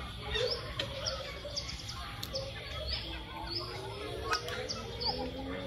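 Short high bird chirps repeating about twice a second, with a low, drawn-out call rising slowly in pitch from about halfway through.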